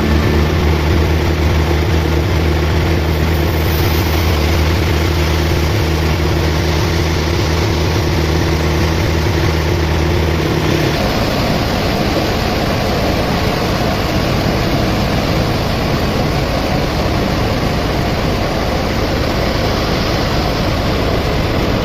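Machinery running: a steady low hum for about eleven seconds, which then changes to an even rushing noise.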